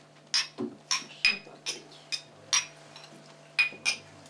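Small drinking glasses clinking together in a toast: a string of sharp, ringing chinks, about eight or nine spread over four seconds.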